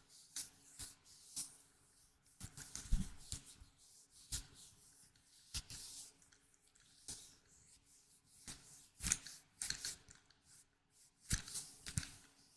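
Hands handling small objects close to the microphone, making irregular taps, clicks and short scratchy rustles, the loudest about three seconds in and again near nine and eleven seconds.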